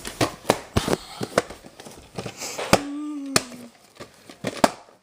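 A quick, irregular series of sharp clicks and knocks, with a short steady hum about three seconds in.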